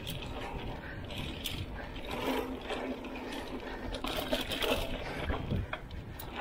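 Mountain bike descending a dirt singletrack: steady wind and tyre rumble with rapid clicking and rattling from the bike's hub and drivetrain. A faint hum joins about two seconds in and stops shortly before the end.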